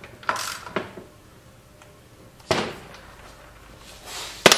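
Scattered knocks and clanks of a hand tool and metal parts on a tracked snowblower's drive frame: two light taps in the first second, a sharp knock about two and a half seconds in, and a louder sharp one near the end.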